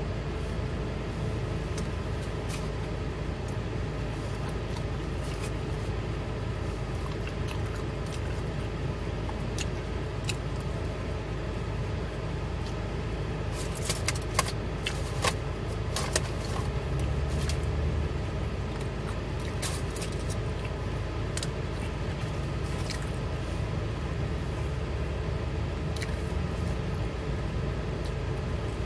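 Steady low hum of a car cabin with a man eating and chewing, and scattered sharp clicks and crackles, most of them about halfway through.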